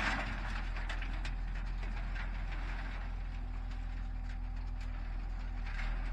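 Engine idling steadily with a constant low hum, with scattered faint ticks over it.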